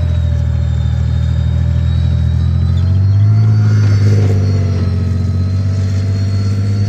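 Challenger 2 main battle tank driving past, its Perkins CV12 V12 diesel engine giving a deep, steady drone with a thin high whine above it. It swells loudest about three to four seconds in as the tank passes closest, then eases slightly.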